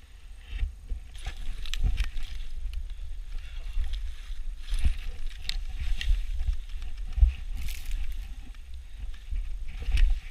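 Skis running through deep powder snow: repeated hissing swishes of snow spray as the skier turns, with scattered knocks and a constant wind rumble on the helmet-camera microphone.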